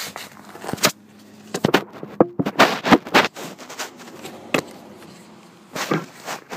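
Irregular metallic clicks, knocks and rattles from a Honda HRA216 mower transmission with a bad bearing, in a busy cluster for a couple of seconds and then single knocks.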